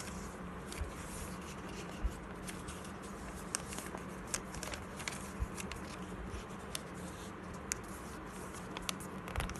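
A sheet of A4 paper being folded and creased by hand: scattered soft rustles and small irregular taps over a steady low hum.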